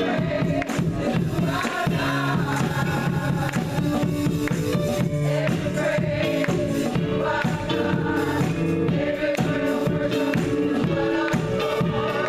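Women's choir singing an upbeat gospel song in harmony over a band, with a tambourine keeping the beat.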